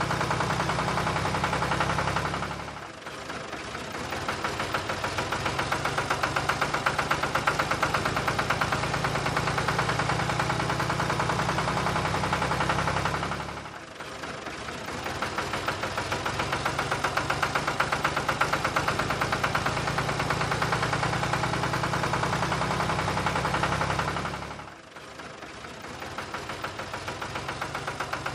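Tractor engine running with a steady rapid beat, its sound dropping away and building back up three times, about every eleven seconds.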